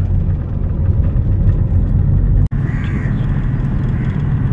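Cabin noise of a Hyundai Verna diesel sedan on the move: a steady low rumble of engine and road. It breaks off for an instant about halfway through, then carries on.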